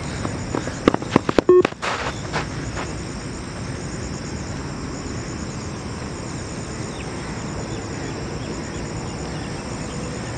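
Insects, crickets, chirping steadily, with a few sharp clicks about a second in and a short electronic beep about a second and a half in: a timing signal of the Yo-Yo test recording.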